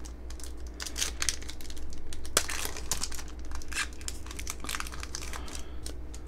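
Foil Yu-Gi-Oh booster pack wrapper being torn open and crinkled by hand: a run of crackling rustles, with the sharpest snap about halfway through.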